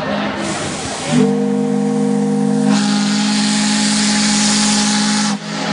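Steamboat Natchez's steam whistle blowing long blasts: several steady tones sounding together as a chord over a loud rush of steam hiss, with a short break near the end.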